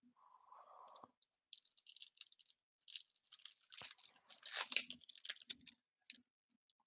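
Foil trading-card pack wrapper crinkling in quick crackly bursts for about four seconds as it is handled and opened, after a softer rustle near the start and followed by a few small clicks.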